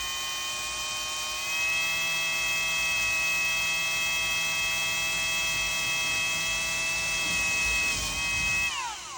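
Kobalt cordless drill running steadily with a 1/2-inch bit, its motor whining at a constant pitch that steps up slightly about a second and a half in. Near the end the whine falls away quickly as the drill cuts out, a fault the owner puts down to the drill's circuitry rather than the battery.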